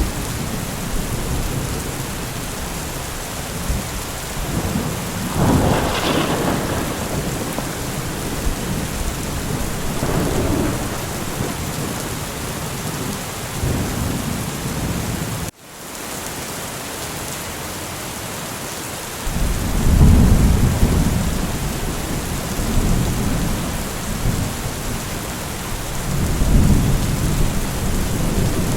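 Steady heavy rain hissing, with several rolling thunder rumbles swelling up and dying away. The sound cuts out for an instant about halfway through.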